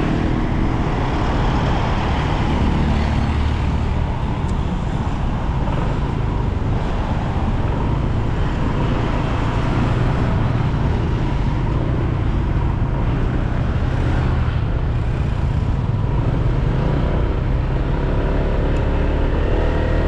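Steady riding noise from a Honda PCX 150 scooter under way: its single-cylinder engine running and road and traffic noise, unbroken throughout.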